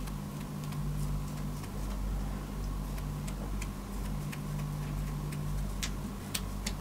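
Scattered small clicks and crackles as fingers press and poke a slime with a dried crust in a ceramic dish, coming more often near the end, over a steady low hum.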